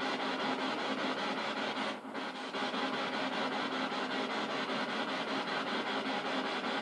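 Steady hiss with a faint low hum underneath, briefly dipping about two seconds in.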